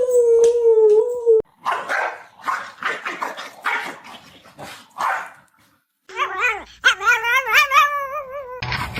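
A dog howls one steady note that cuts off sharply, then a string of short rough sounds follows. Later a dog howls again with a wavering, warbling pitch for a couple of seconds.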